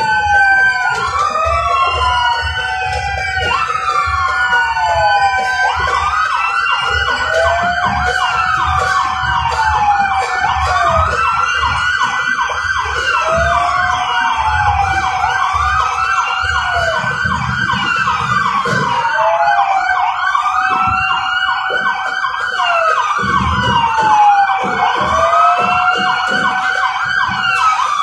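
Several vehicle sirens wailing at once and out of step with each other, each rising and falling in pitch over a few seconds, over a low rumble.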